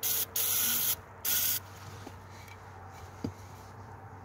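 Aerosol cleaner sprayed into a small-engine lawnmower carburetor in three short hisses, flushing out the carburetor.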